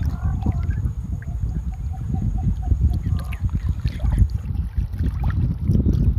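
Shallow seawater sloshing and splashing around a person wading waist-deep, under a heavy rumble of wind buffeting the microphone.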